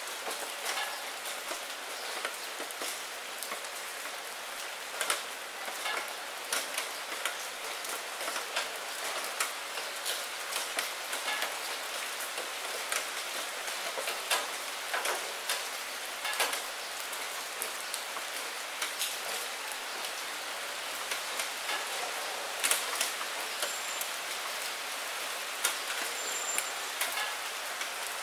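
Steady rain falling on a wet surface: an even hiss dotted with frequent sharp taps of individual drops.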